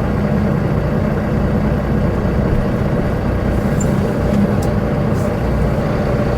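Semi truck's diesel engine running steadily with a low, even hum, with a couple of faint clicks in the second half.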